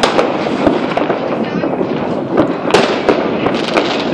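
Many fireworks and firecrackers going off at once: a constant crackle with sharp bangs at irregular intervals. The loudest bang comes a little under three seconds in.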